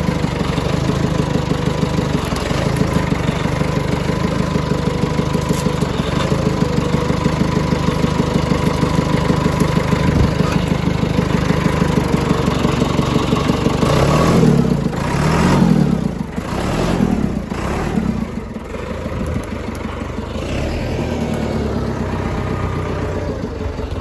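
John Deere 555 crawler loader's diesel engine running steadily with an even clatter, just started after years of sitting unused. About fourteen seconds in, its note rises and falls a few times before settling again.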